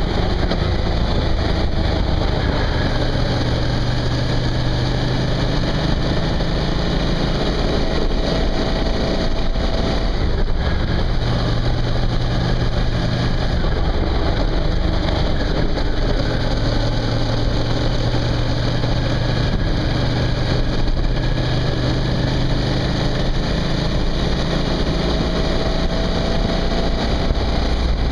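Suzuki V-Strom motorcycle under way: a steady engine note under dense road and wind noise, the engine's pitch shifting now and then with the throttle.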